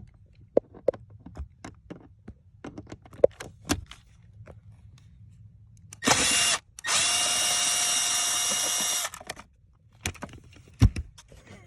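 Power drill running to back out a fastener on the accelerator pedal assembly: a short burst about six seconds in, then a steady whine of about two seconds. Before it come scattered clicks and knocks of tool handling.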